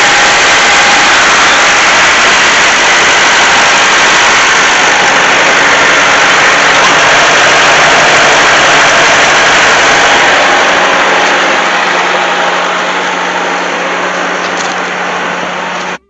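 Bobcat 873 skid steer's diesel engine running loud and steady, easing off gradually over the last few seconds before the sound cuts off suddenly.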